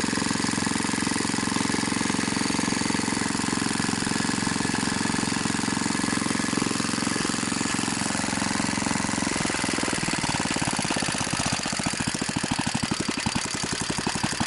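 BSA 220cc single-cylinder engine running without a muffler. About ten seconds in, its separate firing beats become distinct and the sound starts to pulse.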